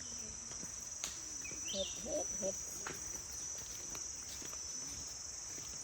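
Steady, high-pitched chorus of forest insects, with a few short clicks and brief louder sounds about two seconds in.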